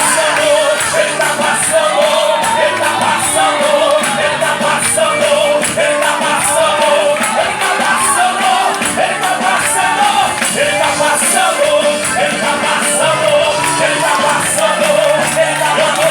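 Loud live gospel worship music with a band, a steady beat and singing voices.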